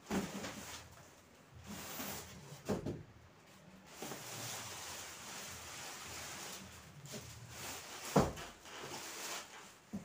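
Large cardboard refrigerator box being handled and pulled at: cardboard rustling and scraping, with a few knocks. The loudest knock comes about eight seconds in.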